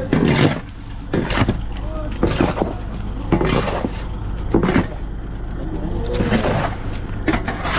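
Fishing trawler's engine running steadily as a low hum, with a few knocks and scrapes as a pole pushes the heaped catch across the deck.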